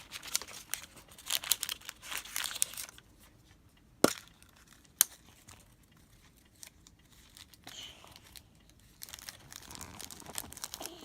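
Toy packaging being crinkled and torn open by hand, with two sharp clicks about four and five seconds in, then more crinkling near the end.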